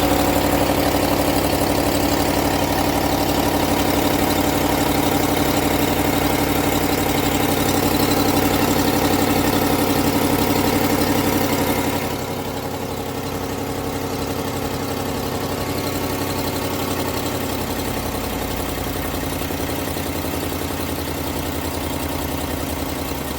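Ram 1500 5.7 Hemi V8 idling with a fast, even exhaust tick from cracked exhaust manifolds. About halfway through, the sound drops a little in level and stays steady.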